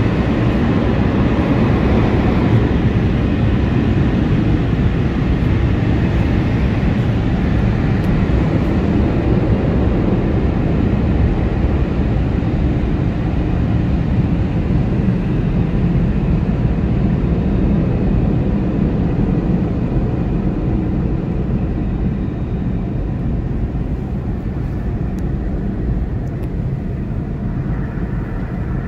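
Automatic car wash heard from inside the car: a loud, steady rush of air and machinery from the drying blowers passing over the car. It eases off a little in the last part.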